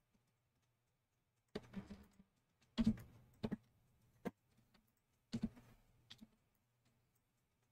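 Scattered clicks and taps of a computer mouse and keyboard, a handful of short strokes with the loudest about three seconds in.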